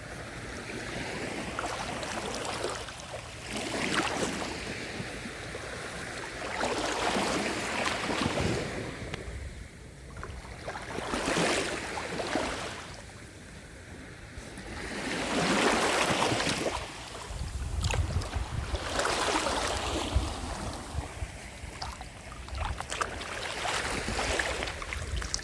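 Small, gentle sea waves breaking and washing up a sandy beach, a hissing surge every three to four seconds. Wind buffets the microphone as a low rumble during the second half.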